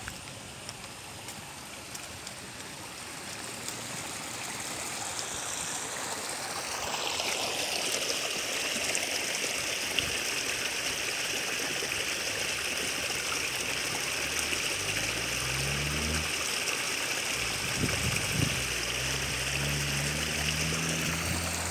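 Water running down a small, stony, grass-lined channel: a steady trickling rush that grows louder about seven seconds in and then holds. In the second half a low hum comes in twice, climbing in pitch in steps.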